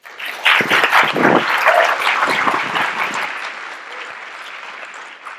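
Audience applauding, swelling within the first half second and then fading away over the last few seconds.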